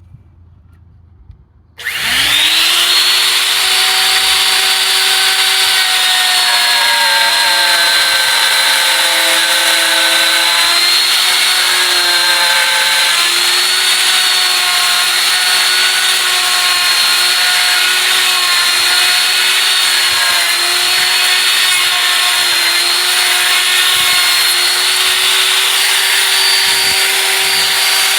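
Electric router starting up about two seconds in and running steadily with a high whine, its pitch wavering slightly as it cuts a quarter inch off a part.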